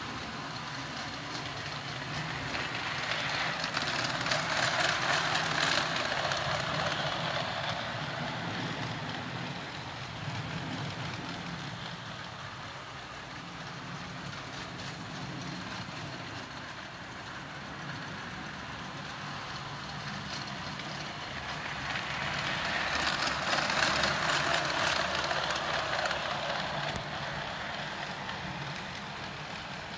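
LGB G-scale Mallet model locomotive and coaches running on a garden railway: a steady low hum, with two slow swells of hiss lasting a few seconds each, about four seconds in and again about twenty-three seconds in.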